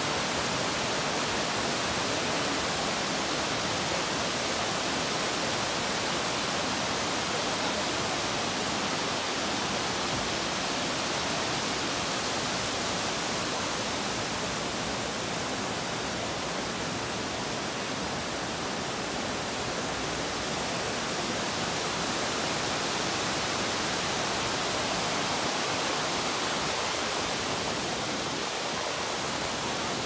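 Water rushing steadily over rocks in a cascading stream below a waterfall, a constant even rush with no breaks. It dips slightly a little past the middle.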